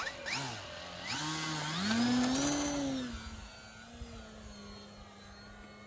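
Electric motor and propeller of an FMS Super Cub radio-controlled plane throttling up with a rising whine, loudest about two seconds in. It then settles to a steady pitch and fades as the plane flies off.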